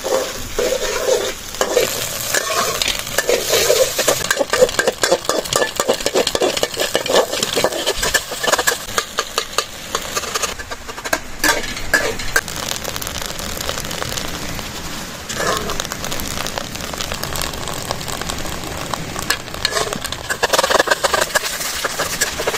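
Egg yolks frying and crackling in their own oil in a pot as they are stirred, the oil just beginning to separate out of the yolks. Many quick pops and crackles over a steady sizzle.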